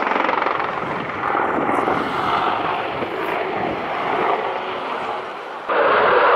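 AH-64 Apache attack helicopter flying a display, its rotor and engines heard as a steady noise that rises and falls as it manoeuvres. Near the end the sound cuts abruptly to a louder, steadier rushing noise.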